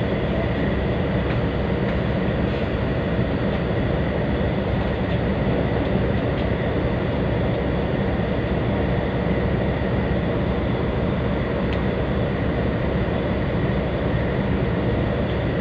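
Tugboat's diesel engines running steadily, heard from inside the wheelhouse as a constant low drone with a faint steady whine above it.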